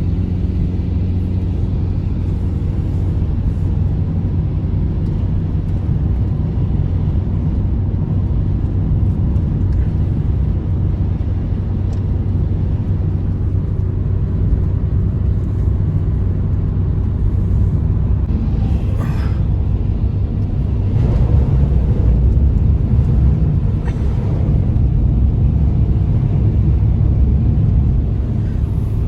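Strong blizzard wind: a loud, steady low rumble that swells a little about two-thirds of the way through.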